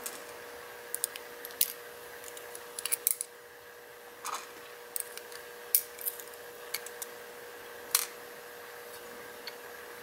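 Small, sharp metal clicks and ticks, irregular and about a dozen in all, as the pins and springs of a disassembled pin-tumbler lock cylinder are handled and tipped out, over a faint steady hum.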